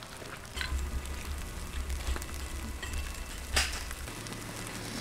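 Steady outdoor hiss of snow falling, with a low rumble through most of it and a single sharp knock about three and a half seconds in.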